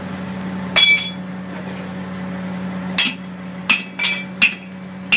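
Hammer blows on metal: six sharp, irregularly spaced strikes, each with a brief metallic ring, over a steady low hum.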